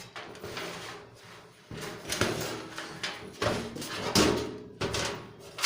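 Sheet-metal parts of an empty computer case being handled: a series of knocks and scrapes of metal, louder from about two seconds in.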